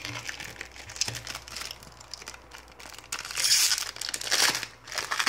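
Foil trading-card packet crinkling in the hands and being torn open, with the loudest crackling bursts in the second half.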